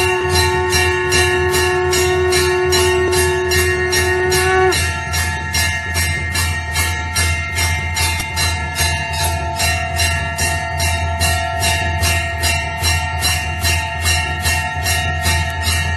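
Temple bells rung fast and evenly, about three strikes a second, their ringing tones carrying on between strikes. A steady conch (shankh) note sounds along with them and cuts off suddenly about five seconds in.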